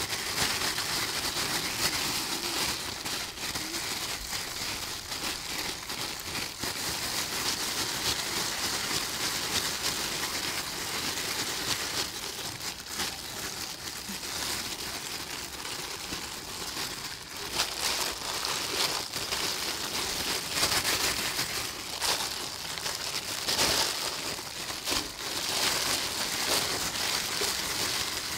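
Hands squeezing and kneading moist fried rice and pressing it into balls, giving a continuous crackling, squishing sound with many small clicks, over a steady high hiss.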